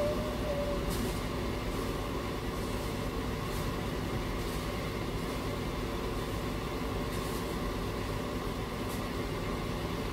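Diesel engine of heavy construction equipment running steadily at an even speed, a constant drone with no change in pitch or load.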